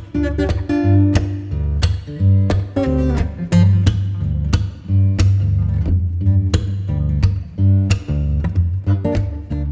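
Background music led by plucked guitar over a steady bass line and beat.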